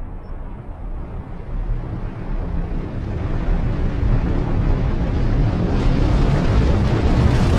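A deep, rushing rumble of noise that swells steadily louder, its hiss spreading higher as it grows.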